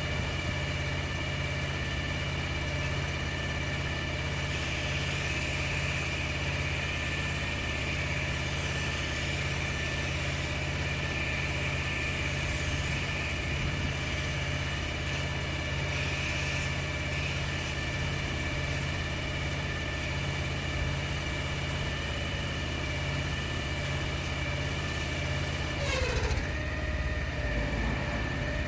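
Pressure washer machine running steadily under a constant drone with a high whine. Near the end the pitch briefly dips and the low drone changes.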